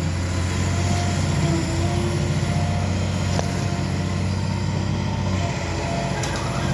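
Engine of heavy demolition machinery running steadily, with a few faint short squeals and one light knock partway through.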